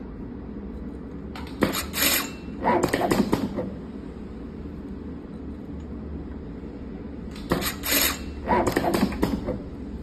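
Tape wrapping machine running two short wrap cycles about six seconds apart, each a quick clatter of sharp clicks and a brief rattling burst as a yellow tape patch is wrapped onto a copper wire coil. A steady low hum runs underneath.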